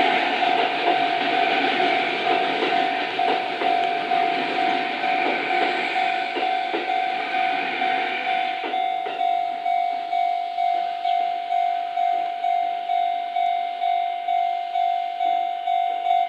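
Railway level-crossing warning bell ringing steadily at about two strokes a second, with a train running through the crossing in the first half, its rumble and wheel clicks fading out. Near the end the bell stops suddenly as the crossing clears.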